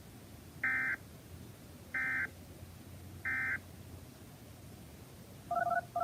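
Emergency Alert System end-of-message signal: three short bursts of the SAME digital data warble, about a second and a third apart, marking the end of the alert. Near the end come two quick electronic beeps.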